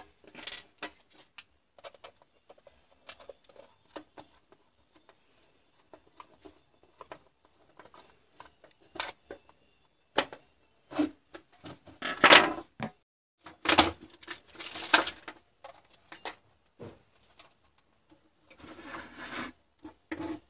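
Handling noises of a hard plastic cordless-drill battery pack and small tools on a workbench: scattered clicks and light knocks, with a few louder scrapes and knocks in the middle and a short rustle near the end.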